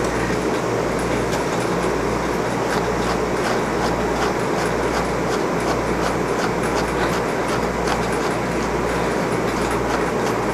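Steady rushing, humming noise from a running motor, with faint short scratchy strokes of a small brush working through an English Angora rabbit's wool.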